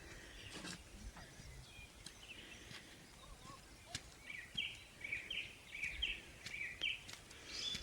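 A small bird calling outdoors: a series of short, high chirps repeated about twice a second in the second half, over faint background noise with a few light clicks.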